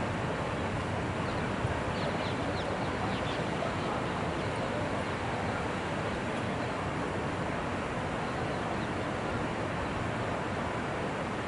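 Steady rushing outdoor noise, like wind on the microphone, with a few short high bird-like chirps in the first few seconds and one soft thump about one and a half seconds in.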